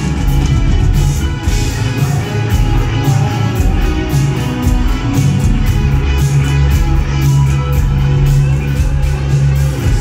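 Live rock band playing: electric guitar, bass and a drum kit, with a steady beat of cymbal strokes.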